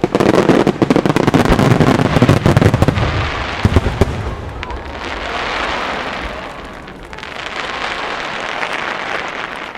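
Japanese display fireworks firing a rapid barrage, with many overlapping bangs and booms for about four seconds. After that it turns to a softer, steady noise that swells twice.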